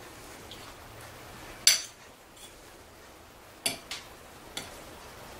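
A metal fork clinks against a ceramic plate about four times as pasta is cut and scooped up. The sharpest clink comes about a second and a half in, and a quick cluster follows near the end.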